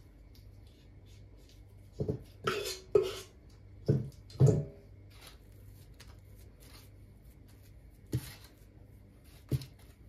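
A palette knife spreading cream over the end of a meringue roll on parchment paper: a handful of short knocks and rustles, several bunched together a few seconds in and two more near the end, over a steady low hum.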